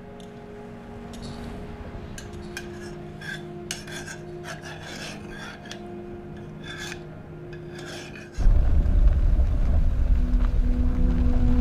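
Cutlery scraping and clinking on plates and dishes during a meal, quiet, over soft held tones. About eight seconds in it gives way abruptly to the much louder, deep steady rumble of a car driving.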